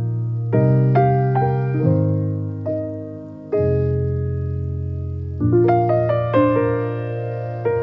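Background piano music: slow chords that ring and fade, then a quicker run of notes in the second half.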